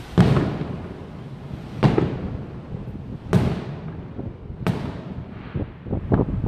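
Aerial firework shells bursting: four loud booms about a second and a half apart, each rumbling away afterwards, then a few smaller, quicker bangs near the end.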